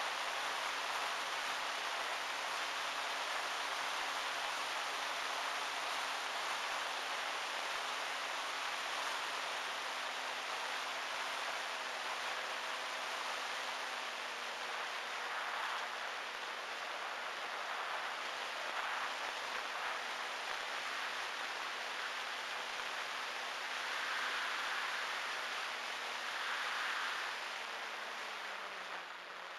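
Onboard sound of an E-flite Timber RC airplane in flight: a steady hum from its electric motor and propeller under a constant rush of wind. Near the end the hum sinks in pitch as the throttle comes back and the plane drops low over the field.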